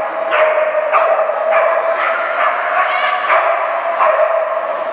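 Dog barking over and over in short, high yelps, about two a second, as it runs.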